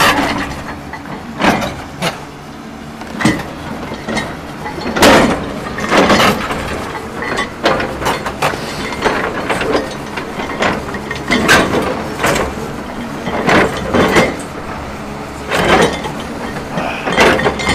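Excavator engine running under load while its ripper tooth scrapes and grates against frozen ground in repeated strokes, one every second or two. The tooth barely bites into the frozen soil.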